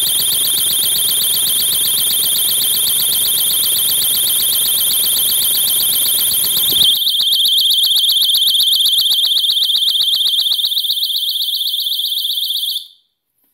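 Handheld personal safety alarm sounding its ear-piercing screech, a very high, rapidly pulsing tone. It cuts off abruptly near the end.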